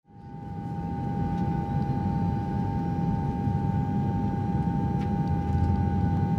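Airliner cabin ambience: the steady low drone of the plane's engines in flight, with a steady hum tone over it, fading in over the first second.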